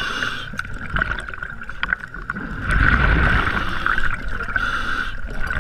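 Underwater sound through a camera housing: a scuba diver's exhaled regulator bubbles rush and gurgle in two bursts, the second about two seconds after the first, over a steady whine.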